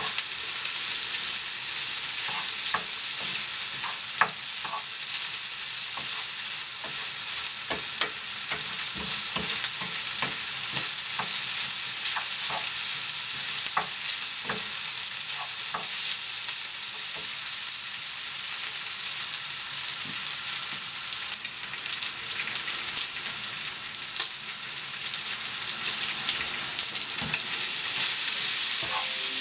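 Sliced onion and bacon bits sizzling in a frying pan, a steady high hiss, while a wooden spoon stirs through them with scattered clicks and scrapes against the pan.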